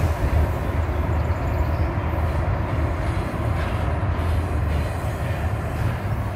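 Double-stack container freight train rolling past, its cars making a steady, low, even noise on the rails.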